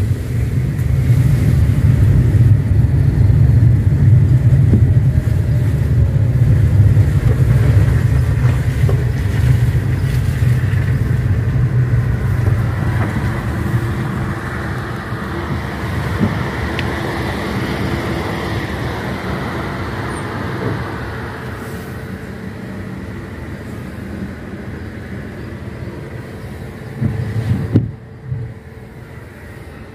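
Car driving, heard from inside the cabin: a steady low engine and tyre rumble that grows quieter from about halfway through, with a short louder burst just before the end.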